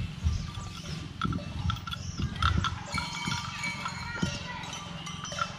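A cow feeding on a bush close by: irregular low thuds and rustles of its browsing and steps, with short high chirps over them.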